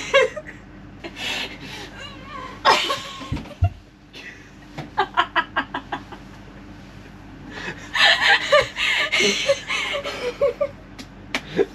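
People laughing, with a run of quick, evenly spaced rubbing strokes about halfway through.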